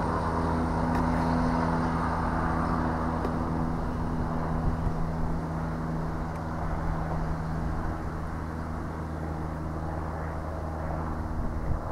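Diesel engine of a First TransPennine Express Class 185 multiple unit running as the train pulls away. It is a steady low engine note with a few held pitches over a rumble, slowly fading.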